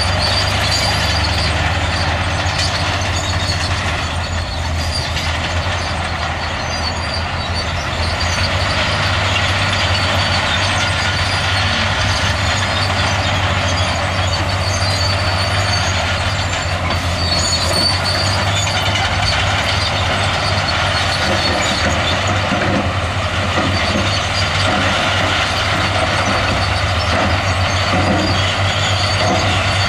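Diesel engines of heavy earthmoving machinery, a bulldozer and dump truck, running steadily under load, with a thin high metallic squeal coming and going over the engine noise.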